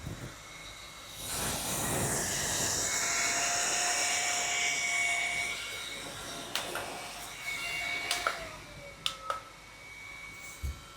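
Nu Republic Flo Ice handheld fan running: its small motor and blades whir up about a second in with a steady whine and rushing air, then drop back after about five seconds. Several sharp clicks follow as its speed button is pressed.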